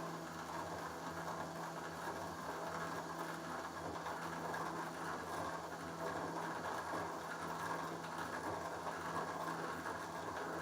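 ProtoTRAK RMX CNC bed mill running a pocket-milling program: the spindle turns with a steady hum as the end mill cuts the material.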